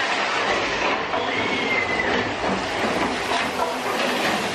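Big Thunder Mountain Railroad mine-train roller coaster rattling along its track, heard from aboard the train, with a short high wheel squeal about a second in.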